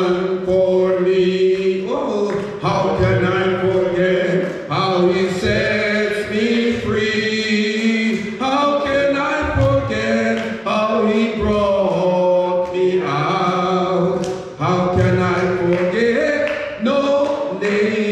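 Church congregation singing a gospel chorus together, the voices holding long notes that step from pitch to pitch.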